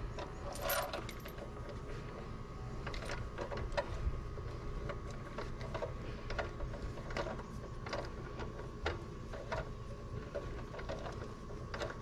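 Irregular metallic clicks and clinks of a hand wrench and bolt hardware being worked on a tractor's three-point-hitch stabilizer chain bracket, over a steady low background rumble.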